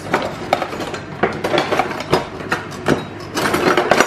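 Quick, irregular clicks, knocks and clinks of things being handled on a hard kitchen worktop, stopping abruptly at the end.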